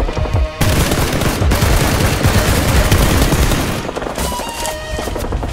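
Rapid automatic gunfire, a dense continuous volley that starts about half a second in.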